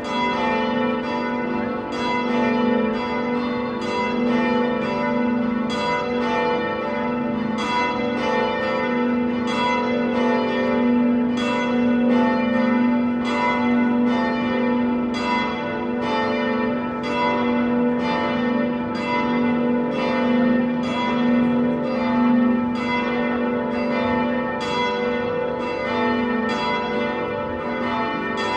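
Church bells ringing in a continuous peal, struck about twice a second, each stroke ringing on and overlapping the next in a steady hum.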